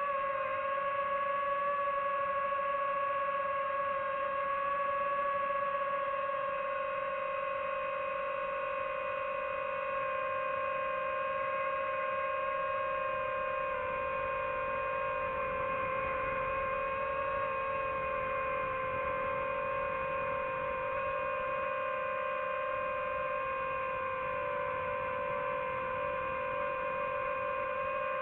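DJI FPV drone's motors and propellers running with a steady buzzing hum, whose pitch dips slightly about halfway through and then recovers.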